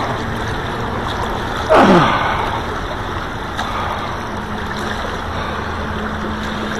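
River water rushing and gurgling steadily around a wading angler's legs, with one short wordless voice sound falling in pitch about two seconds in.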